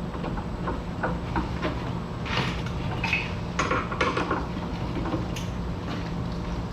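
Steel pieces and tools being handled in a metal shop: scattered light metallic clinks and clanks, with a couple of brief scrapes about two to four seconds in, over a steady low hum.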